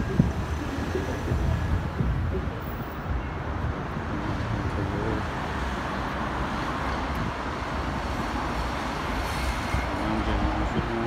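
Steady city traffic noise, a low rumble with a haze of road sound, with faint voices now and then and a single sharp knock just after the start.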